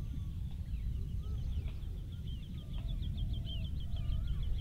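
Small birds calling outdoors: a rapid run of short, high chirps, about six a second, that grows louder through the second half, with a few lower whistled calls. Underneath is a steady low rumble.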